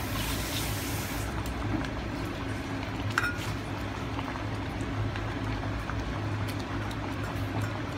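Metal ladle stirring a pot of simmering oxtail stew, liquid sloshing, with a light clink of the ladle against the pot about three seconds in, over a steady low hum.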